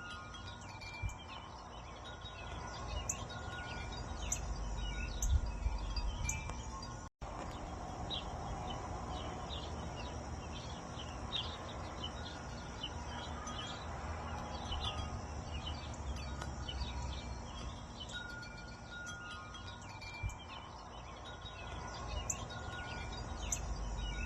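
Wind chimes ringing continuously, with many light strikes and a few longer held tones, over a low rumble of wind. The sound cuts out for a split second about seven seconds in.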